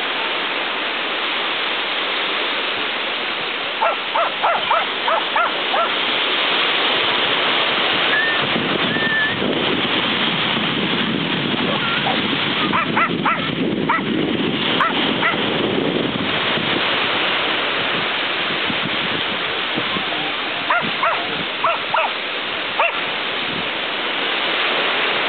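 Small white terrier barking in three quick runs of high yaps, several yaps to each run, over a steady rush of surf.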